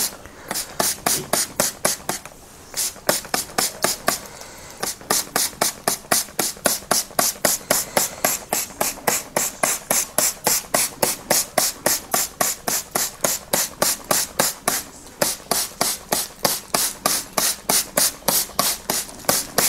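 Hand-pumped plastic trigger spray bottle squirting water onto a plastic mushroom grow bag in a quick, even run of hissing squirts, about three a second, with a few short breaks. It is misting the bag to keep the growing mushrooms moist.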